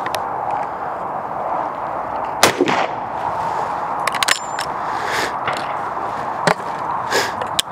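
A single shot from a W.W. Greener single-barrel shotgun about two and a half seconds in, followed a moment later by a cluster of sharp metallic clicks and then a couple of single clicks as the action is opened and the gun handled for reloading.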